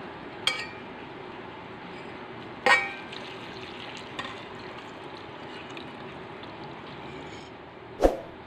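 Water poured from a vessel into a stainless steel pot of green chillies, fruit and leaves, after a couple of sharp, ringing metal clinks against the pot. It ends with a single heavy knock, the loudest sound here.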